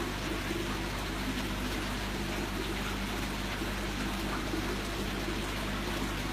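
Aquarium filter and pump running: a steady trickle of water over a constant low hum.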